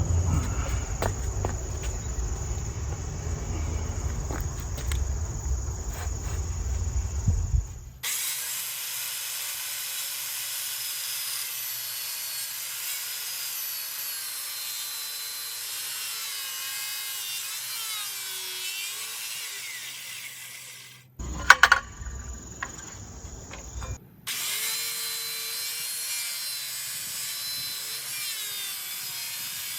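Handheld circular saw cutting through thick wood, its whine wavering as the blade loads up and eases off. A heavier rumbling stretch comes first, and a few sharp knocks sound about 21 to 22 seconds in.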